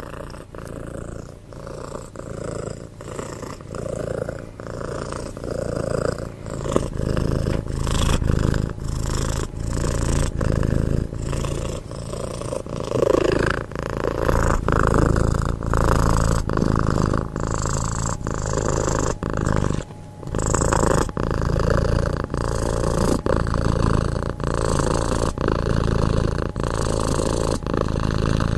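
Domestic cat purring close to the microphone: a steady rumble that pulses in a regular rhythm. It grows louder over the first several seconds and breaks off briefly about twenty seconds in.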